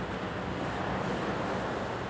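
Small Gulf surf breaking and washing onto a sandy beach, a steady rushing sound.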